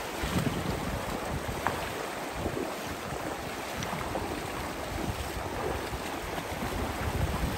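Stream water rushing steadily, with irregular low rumbles of wind buffeting the microphone.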